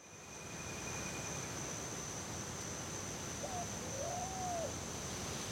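Open-field ambience: a steady high-pitched insect trill over a low rumble. A little past the middle an animal gives two low calls, a short one and then a longer one that rises and falls.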